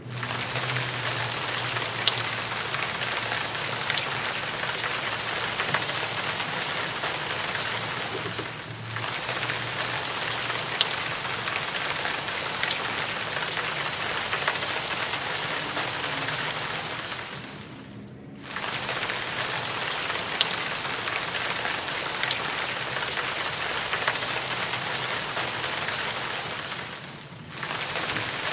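Steady rain falling on pavement, an even hiss with a few louder single drops striking close by. The sound dips briefly three times.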